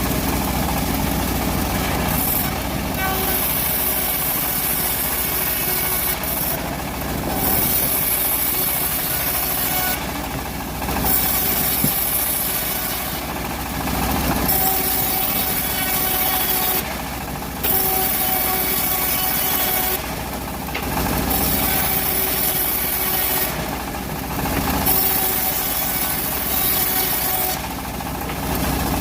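Home-built bandsaw mill cutting teak logs. The machine runs continuously under the hiss of the blade in the wood, and the hiss drops out briefly about every three to four seconds.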